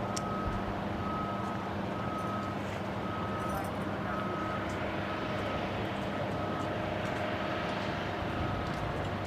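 Truck reversing alarm beeping about once a second, over the steady hum of the idling engine.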